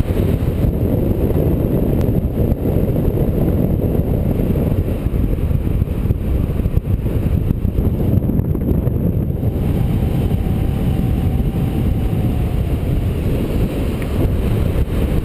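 Strong wind buffeting the microphone: loud, steady low rumbling noise, with a faint thin tone for a few seconds in the middle.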